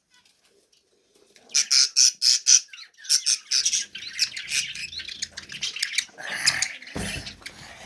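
Budgies squawking and chirping in quick, harsh bursts, starting about a second and a half in, with a thump near the end.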